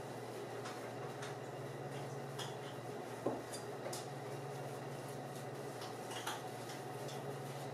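Silicone spatula folding almond flour into a thick batter in a glass mixing bowl: scattered soft scrapes and light clicks against the glass, with one sharper knock about three seconds in, over a steady low hum.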